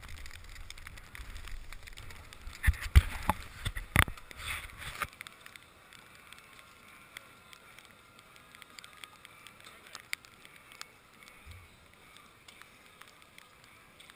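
Skis scraping over heavy wet snow with wind on the microphone, and several sharp knocks about three to four seconds in. From about five seconds on it is much quieter, with only a few faint pops beside an open fire pit.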